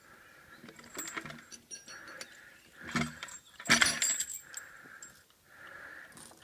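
Metal logging chain clinking and rattling as it is wrapped around a log and hooked up for a horse to drag, with a few sharp clinks, loudest a little past halfway.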